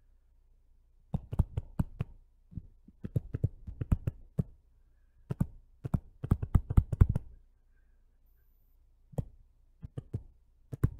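Stylus tapping and clicking on a tablet screen while writing by hand, in four short runs of quick taps with pauses between.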